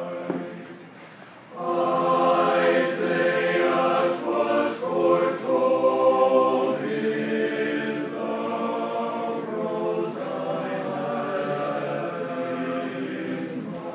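Men's chorus singing a cappella in sustained chords. The sound fades briefly near the start, then the full chorus comes back in loudly about a second and a half in.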